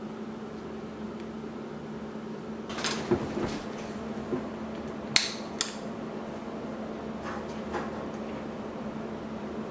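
Hands handling a mirrorless camera body: a patch of rustling and knocking about three seconds in, then two sharp plastic clicks about half a second apart, and a few fainter knocks later, over a steady low hum.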